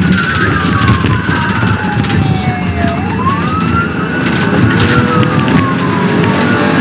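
Police car siren on a slow wail: the pitch falls, rises about three seconds in, then falls again, over the pursuing squad car's engine and road noise.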